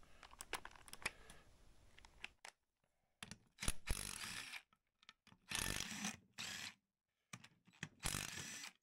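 A hand ratchet clicking in about four short bursts, a second or less each, as the bolts holding the engine's motor plate are turned out, with a few scattered tool clicks before them.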